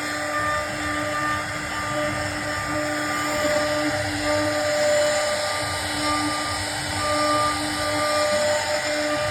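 CNC router spindle running with a steady high whine while its bit cuts into a wooden door panel, the pitch holding level.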